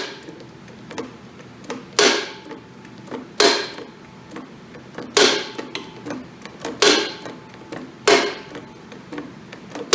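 Sharp metal-on-metal clanks, about one every one and a half seconds, each ringing briefly, while a dry cylinder sleeve is being worked out of a Ford TW-20 engine block with a sleeve puller.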